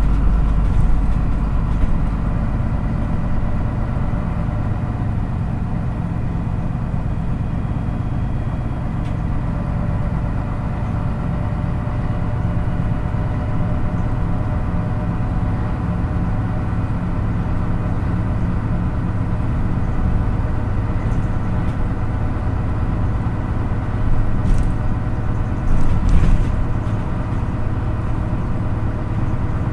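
MAN NÜ 313 city bus's diesel engine running at a steady pitch, heard from inside the passenger cabin with low road rumble. A few brief rattles or knocks come about 24 to 26 seconds in.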